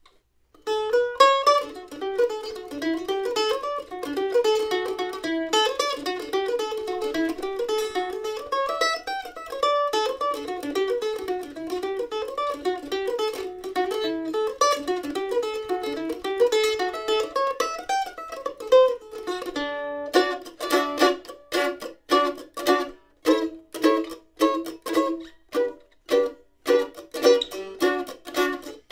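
A CF Smartt F-style mandolin with cherry back and sides and an Adirondack spruce top, played solo with a pick. It starts with a fast, continuous run of single notes, then, about two-thirds of the way in, changes to evenly spaced strummed chords.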